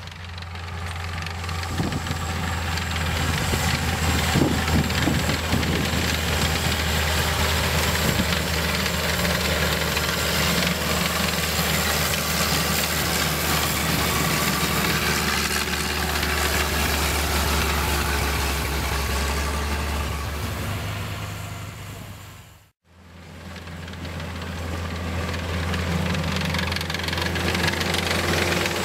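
M4 High Speed Tractor's Waukesha six-cylinder gasoline engine running steadily under load as the tracked tractor drives across sand, a continuous low drone. About 23 seconds in the sound dies away to silence for a moment, then fades back up to the same steady engine note.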